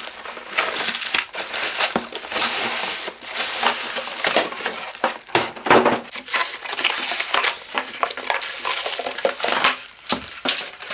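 A cardboard box being opened and its packaging handled: continuous scraping and crinkling of cardboard and packing material, with many small knocks and clicks.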